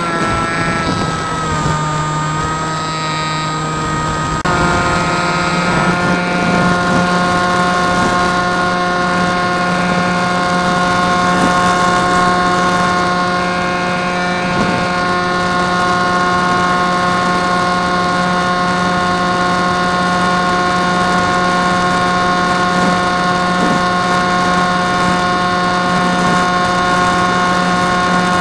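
Drifter ultralight's engine and propeller running steadily in flight, a constant droning note; about four seconds in the engine note steps up in pitch and loudness and then holds steady.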